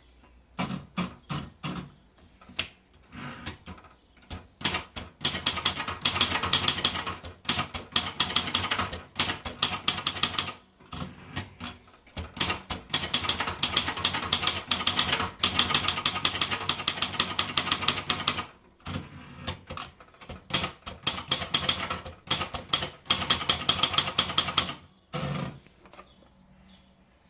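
Royal Signet manual portable typewriter being typed on: a few scattered keystrokes, then two long runs of fast key strikes with a short break between them, and a heavier clunk near the end.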